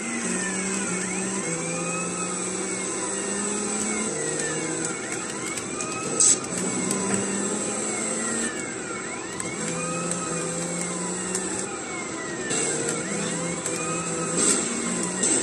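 Driving-game chase audio: police sirens wailing, their pitch rising and falling over and over with several overlapping, over a car engine running. A short sharp knock about six seconds in.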